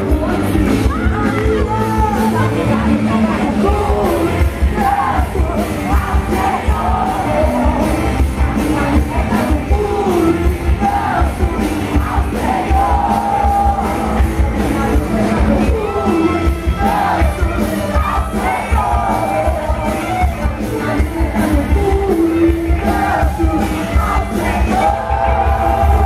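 Live amplified music over a PA: a singer's voice over a heavy, steady bass beat, with the crowd yelling along.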